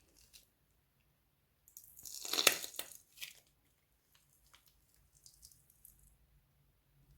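Slime and plastic piping bags being handled: a short noisy crinkling burst about two seconds in, then scattered faint crackles.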